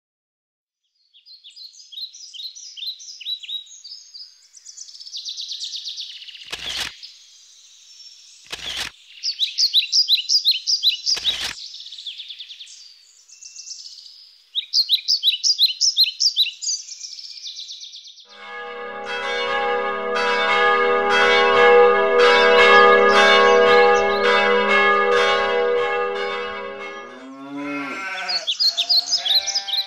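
Birdsong of high chirping, trilling phrases, broken by three sharp clicks a couple of seconds apart. Then a peal of church bells rings out, many strikes in quick succession, for about nine seconds. Near the end a cow moos with a falling pitch, and the birdsong returns.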